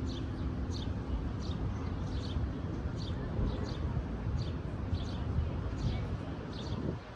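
A bird calling over and over with short, high chirps, about three every two seconds, over a steady low wind rumble that eases just before the end.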